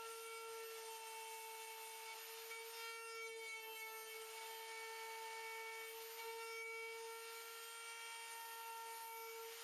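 Woodworking machine running and cutting wood: a steady motor whine over a rasping, sawing noise.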